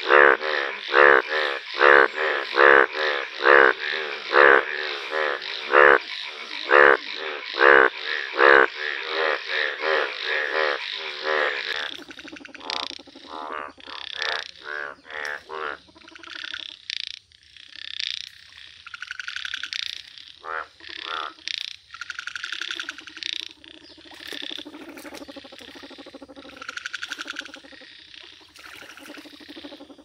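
Indian bullfrogs croaking. For about the first twelve seconds one loud call repeats steadily at roughly one a second, then the calls turn quieter and more irregular, several overlapping.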